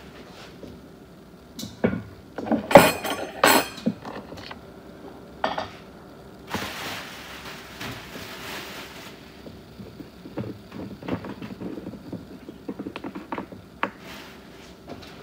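Dishes and utensils clattering and clinking in a kitchen, over a faint steady hum. There are a few loud knocks and clinks about two to four seconds in, a couple of seconds of rushing noise near the middle, then a run of small, quick clicks.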